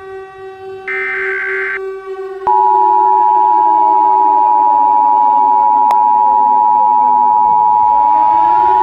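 Emergency Alert System tones: a short burst of the SAME digital header data about a second in, then from about two and a half seconds the loud, steady two-tone EAS attention signal. Underneath, a siren holds its pitch, slowly winds down, then rises again near the end.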